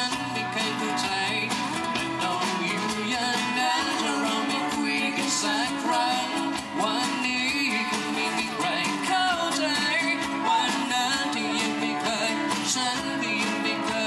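A live band playing a song: a singer over guitar and a drum kit.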